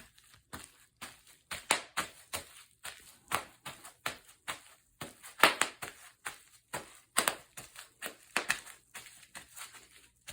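Bubble wrap being popped underfoot: an irregular run of sharp pops and crackles, a few each second.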